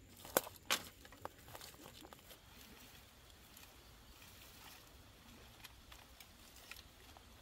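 Footsteps in dry grass and twigs: two sharp snaps within the first second, a few smaller cracks, then faint rustling and crackling.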